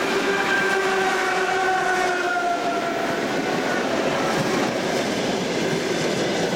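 ET2M electric multiple unit running past and pulling away, a steady noise of wheels on the rails. A faint whine sinks slightly in pitch over the first few seconds as the train goes by.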